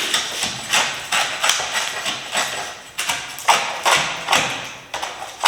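A steady series of sharp knocks, about two to three a second, each with a short ringing tail, from tool work on wood and metal.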